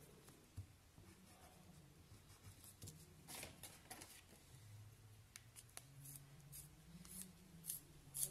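Very faint pen-on-paper sounds: a brief scratch of a pen drawing, then scattered soft rustles and clicks of hand and paper.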